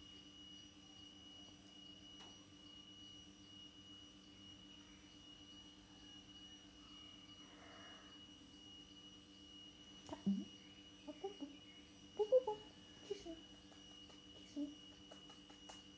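A steady faint hum with a high electrical whine, joined in the last six seconds by a few short voice sounds that rise and fall in pitch.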